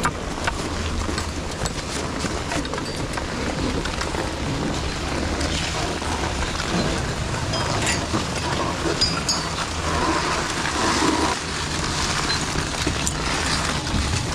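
Skis scraping and shuffling on packed snow, with steady wind rumble on the microphone and a few sharp clicks near the middle and toward the end.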